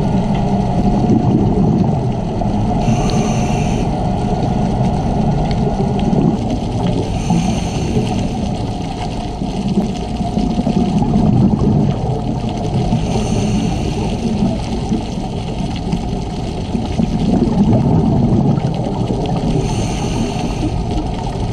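A scuba diver's regulator breathing underwater: four inhales, each a hiss of about a second, come roughly every five to six seconds, with the low rumble of exhaled bubbles swelling between them.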